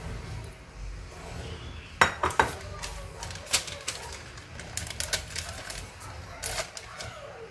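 Stainless steel saucepan being handled on a kitchen counter while paper is pressed in to line it: a quick cluster of metallic knocks and clinks about two seconds in, then a few single clinks.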